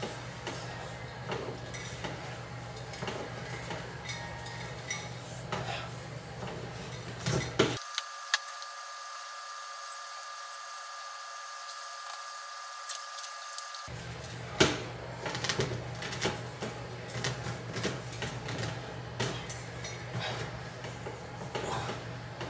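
Clicks and knocks from a doorway pull-up bar worked through a set of weighted pull-ups, with sharper knocks about a third of the way in and again just past the middle, over a steady low hum.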